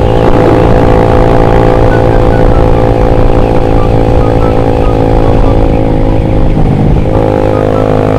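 Motorcycle engine running at a steady cruising speed, heard from the rider's own bike, its note holding level with a brief ease and shift in pitch about seven seconds in.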